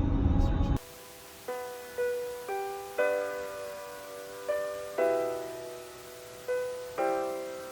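Background music: slow piano notes struck one or two at a time, each ringing and fading before the next. A loud rushing noise under the music cuts off suddenly just under a second in.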